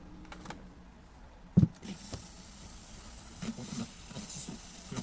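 A sharp, loud click about one and a half seconds in, then a steady high hiss from a radio cassette recorder switched on, with a few faint low sounds over the hiss.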